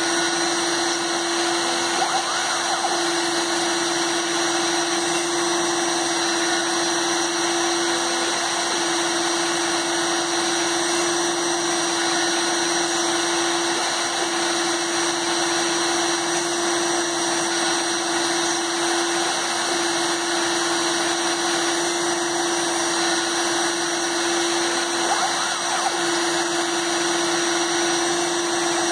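Proxxon rotary-tool spindle on a hobby CNC machine running with a steady whine as its 1.05 mm PCB drill bit bores holes through copper-clad circuit board. The tone wavers briefly every five or six seconds.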